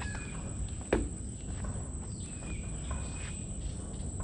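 Mangrove ambience: a steady high insect drone with short whistled bird calls over it. A single sharp knock about a second in is the loudest sound.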